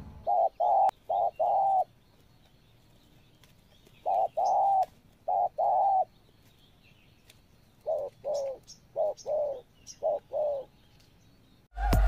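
Spotted doves cooing: three phrases of short repeated notes, a few seconds apart, the last one longer.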